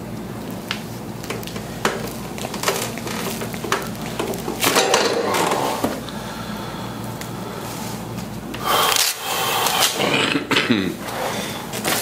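Handling sounds on a chiropractic treatment table: scattered sharp clicks and knocks with louder stretches of rustling about five seconds in and again from about nine to eleven seconds, over a steady low room hum.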